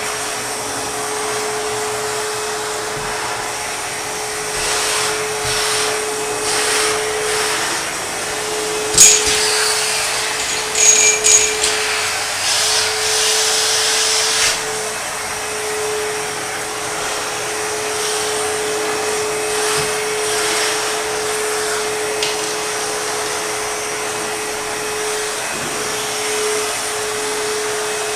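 ProTeam backpack vacuum running steadily with a constant motor whine over the rush of air. About a third of the way in, the tool knocks sharply a few times against something hard, with brief high whistles as the nozzle seals.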